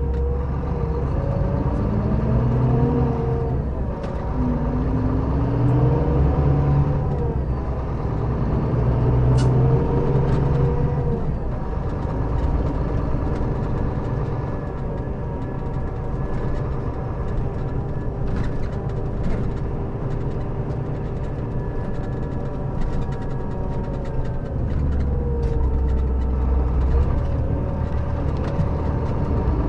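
Scania K400B coach's six-cylinder diesel engine running under load, its pitch rising and falling several times as it pulls and shifts through gears.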